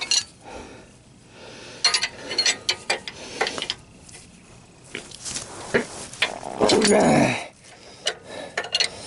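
Hand tools working on a stuck oxygen sensor: irregular clicks and metallic clatter, likely a ratcheting wrench. About two-thirds of the way through comes a loud, drawn-out, groan-like sound that falls in pitch.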